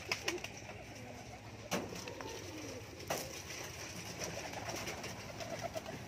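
A flock of domestic pigeons cooing while feeding on scattered grain, with a few sharp clicks.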